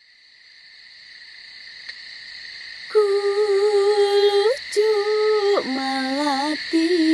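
A high, steady drone fades in, and about three seconds in a woman's voice starts singing long held notes with small wavering bends and a sliding drop to a lower note, in a Javanese sung-poetry style.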